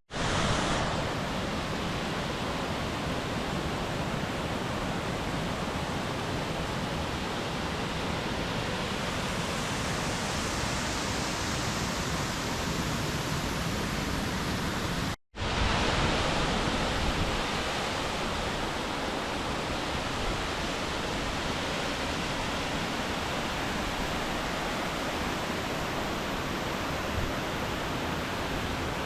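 Steady rush of a mountain stream and waterfall, as even noise with no let-up. It cuts out for an instant about halfway through and then goes on as before.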